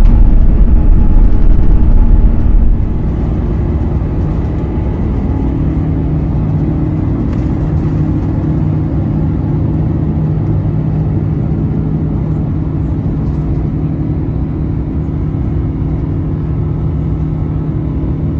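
Airbus A350 cabin noise from the Rolls-Royce Trent XWB engines: a loud low rumble that drops off sharply about three seconds in, then a steady engine drone with a low hum.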